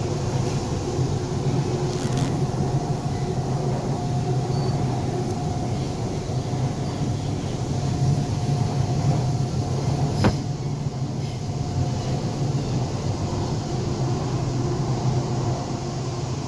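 Namma Metro train running: a steady rumble with a low steady hum and faint whine, and a single sharp click about ten seconds in.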